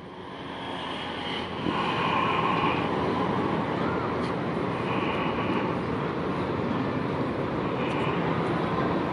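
Alstom AD24C diesel-electric locomotive running light toward the listener. Its steady engine drone grows louder over the first two seconds, then holds.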